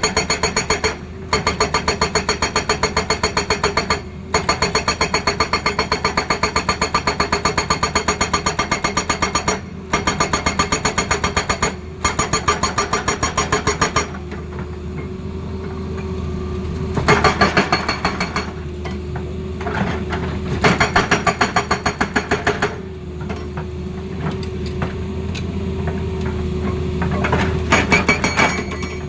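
Tata Hitachi excavator's hydraulic breaker hammering in rapid, evenly spaced blows, in long runs with short pauses for about the first half. After that the excavator's diesel engine runs steadily, broken by three shorter runs of hammering.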